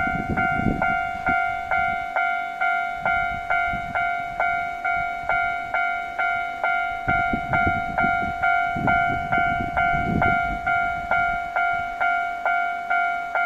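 Railway level crossing warning bell ringing steadily, a little over two strikes a second, as a Kintetsu express train of 2410-series and 5200-series cars passes, its wheels rumbling on the rails just at the start and again from about seven to ten seconds in.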